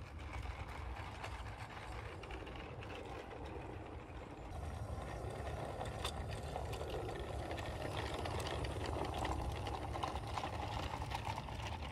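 Model diesel locomotive (a modified Roundhouse Hercules) running along garden-railway track with its skip wagons. It makes a steady mechanical running sound with many light clicks and rattles. The sound grows louder about four and a half seconds in as the train comes close.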